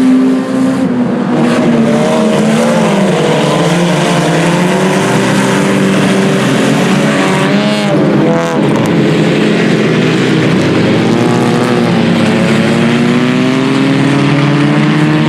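A field of IMCA Sport Compact race cars' four-cylinder engines running hard together on a restart, several engine notes falling and then rising again. One car passes close about eight seconds in.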